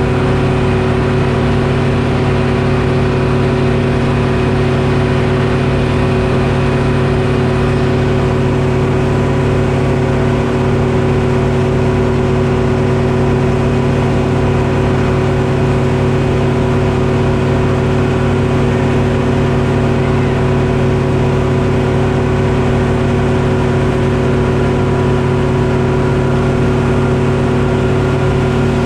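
Detroit Diesel engine powering a Frick sawmill, running at a steady speed with an even, unchanging tone.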